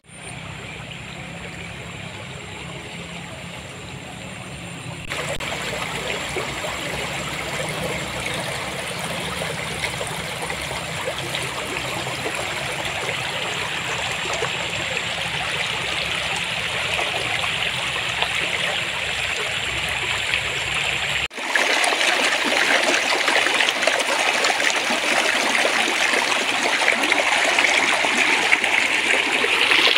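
Clear water flowing and babbling steadily over stones in a stream. The sound changes abruptly twice, about five seconds in and again about twenty seconds in, each time becoming louder and brighter.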